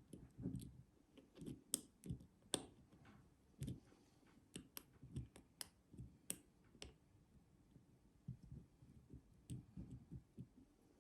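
Faint, irregular clicking and light scraping of a lock pick working the pins inside a pin-tumbler padlock's keyway under a tension wrench, with low rustling from the hands handling the lock.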